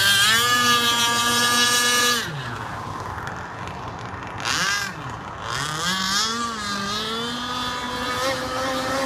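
The 26cc two-stroke petrol engine of a Pro Boat Shockwave 55 radio-controlled speedboat, held at high revs for about two seconds, then throttled right back. It is blipped once briefly, then opened up again to a steady high pitch near the end.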